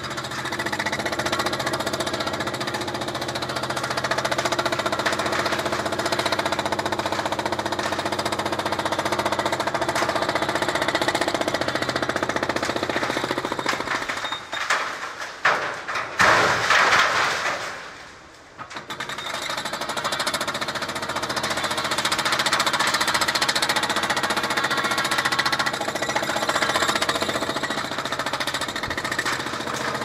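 Remote-controlled hydraulic breaker hammering concrete in a steady, rapid rattle. About halfway through it breaks off for a few seconds, with a short irregular burst of noise, then starts hammering again.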